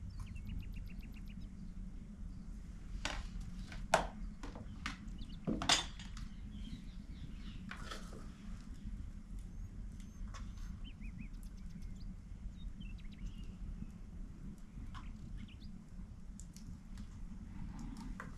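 A metal spoon clicking and scraping against bowls and a plastic spice box as spices are spooned out: a handful of sharp taps, two of them louder, over a steady low background noise. Small birds chirp faintly in the background.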